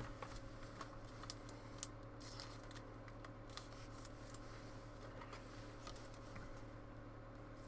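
Faint, irregular clicks and light rustles of trading cards and their packaging being handled, over a steady low electrical hum.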